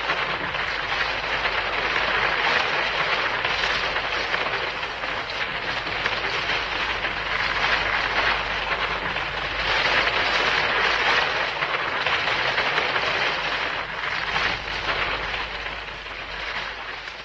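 Hedorah monster sound effect: a long, continuous harsh rushing noise with a dense crackle running through it and a low hum beneath. It fades out near the end.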